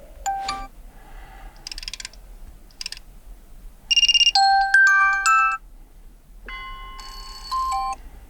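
Built-in alarm tones of a Vivo Y76 5G previewed one after another: several short electronic chime and melody snippets, each cut off after a second or so. The loudest, about four seconds in, is a fast pulsing tone running into a short tune.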